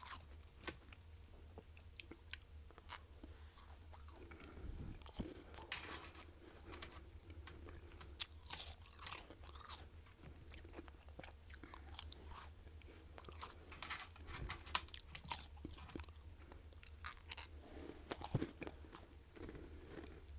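Close-up biting and chewing of freezer frost, irregular crisp crunches and crackles as the icy frost is chewed, with a steady low hum underneath.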